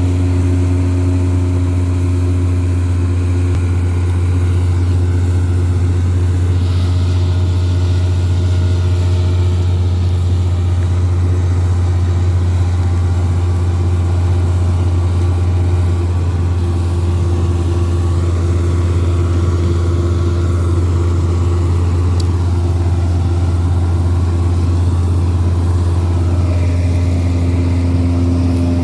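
Wheat combine harvester running steadily, a loud, even engine drone with a deep hum and steady machine tones above it.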